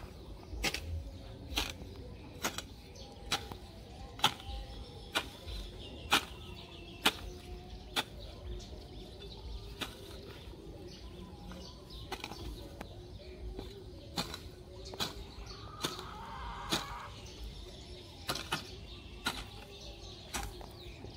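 Long-handled garden hoe chopping into grassy soil to clear weeds, a sharp strike about once a second.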